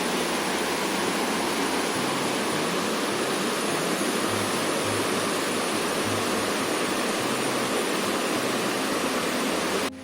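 Rushing water of a forest river: a steady, even rush that cuts off abruptly just before the end.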